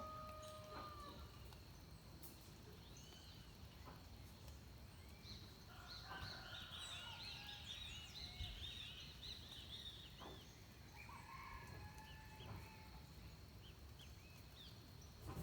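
Faint dawn chorus of many small birds, with rapid chirps and trills that thicken in the middle. A rooster crows in the distance at the very start and again near the end, over a steady high-pitched tone.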